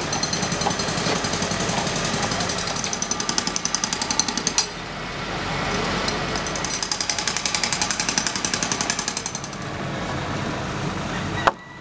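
Rapid, evenly repeated mechanical hammering from a power hammer or breaker on a construction site, in two long runs with a short break about five seconds in, over a steady background din of site noise. The sound cuts off abruptly near the end.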